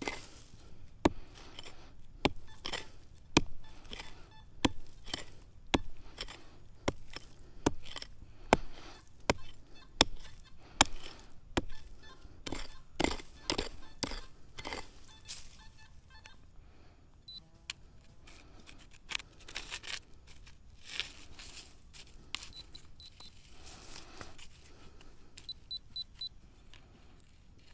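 Footsteps walking at an even pace, one crunching step every half-second or so, for about the first fifteen seconds. After that it is quieter, with a few short high beeps from a metal detector, several in quick succession near the end.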